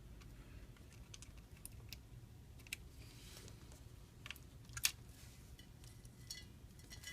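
Light, scattered clicks and taps of small repair tools and parts against the opened iPhone's flex cable and frame, over a faint steady hum; the sharpest click comes about five seconds in.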